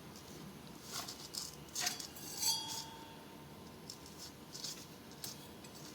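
A few light clinks of a spoon against kitchen vessels while oil is added to hot-water wheat flour dough, the loudest about two and a half seconds in with a brief ring.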